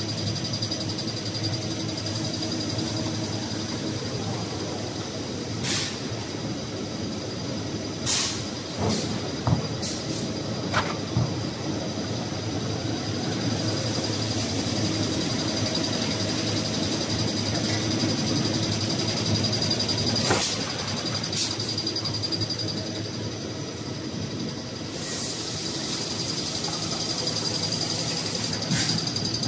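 Toilet paper and kitchen towel production line running: a steady mechanical hum with a thin high whine, broken now and then by short sharp knocks, several of them about eight to eleven seconds in.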